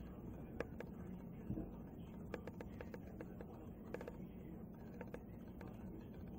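Crows tapping on a skylight and roof overhead: faint, irregular sharp taps, some in quick runs of three or four, one a little louder near the middle.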